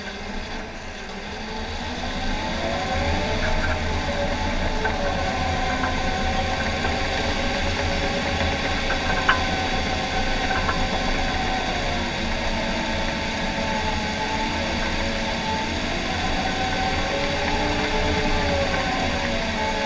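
John Deere 750K crawler dozer's diesel engine and drive running under load while pushing dirt, building up over the first two seconds and then holding, with its pitch slowly rising and falling. A sharp click about nine seconds in.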